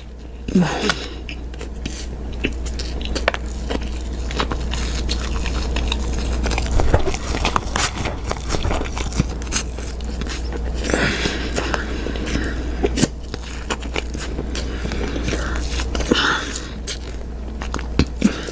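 Close-miked biting and chewing of a piece of soap, a dense run of irregular crisp clicks and crackles. A steady low hum sits underneath.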